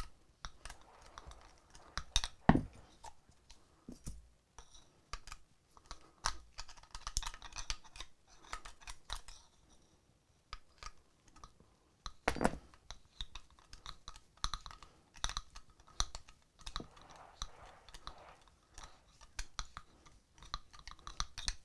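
Hex driver winding the Allen screw of a pistol grip into an AR lower receiver: irregular light clicks and scrapes of the metal tool on the screw and grip. Two louder knocks stand out, the second about halfway through.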